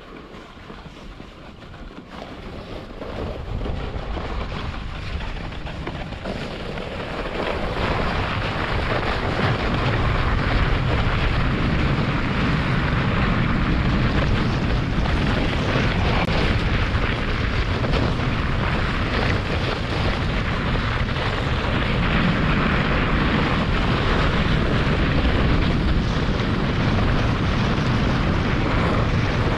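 German Luge 115 sled's runners scraping and hissing over the snow of a toboggan run, mixed with wind rushing on the microphone. It grows louder over the first eight seconds or so, then stays steady.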